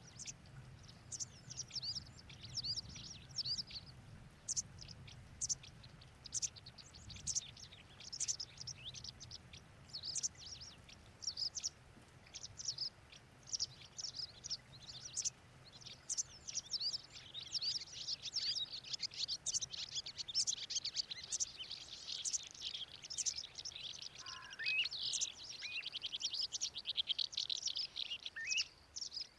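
Small birds chirping and twittering, many short high calls overlapping, thickening into a dense chatter with a fast trill in the last third.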